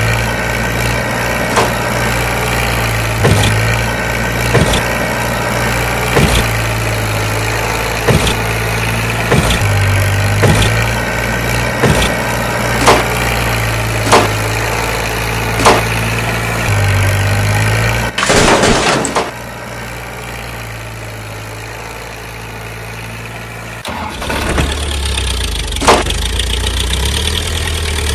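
Tractor engine running steadily with a regular knock about every second and a half. About eighteen seconds in comes a loud rushing burst of about a second, after which the engine sound drops away. A few seconds later a deeper-pitched engine takes over.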